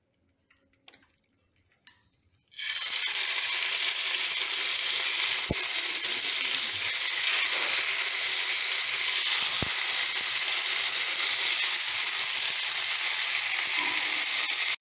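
Marinated chicken pieces sizzling in hot oil in a non-stick frying pan. The loud, steady sizzle starts suddenly about two and a half seconds in, after a few faint handling clicks.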